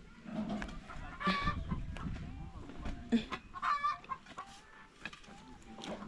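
Chickens clucking, with a few separate calls: one about a second in and two close together a little past the middle.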